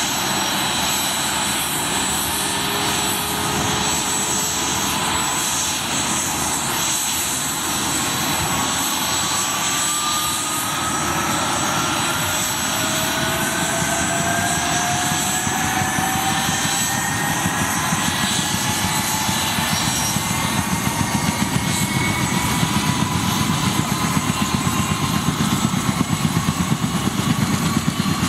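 Boeing CH-47 Chinook helicopter running on the ground, twin turboshaft engines whining and tandem rotors turning. The whine rises slowly in pitch as the engines and rotors spin up, and a fast rhythmic beat from the rotors grows stronger near the end.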